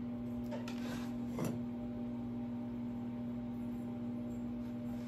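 A steady electrical hum with a low pitched drone, and a brief soft handling noise about a second and a half in.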